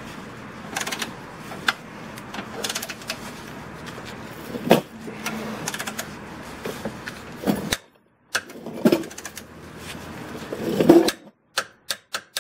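Ratcheting clicks of a long click-type torque wrench working a subframe collar bolt: a quick, uneven run of small clicks with a few louder knocks, stopping briefly about eight seconds in.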